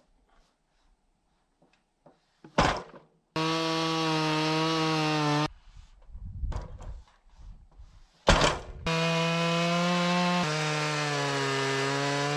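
Two-stroke chainsaw on a Logosol F2 chainsaw mill running at high revs through a log, ripping a board. It runs in two stretches that start and stop suddenly, each preceded by a sharp knock. The pitch drops a little partway through the second stretch as the saw takes load in the cut.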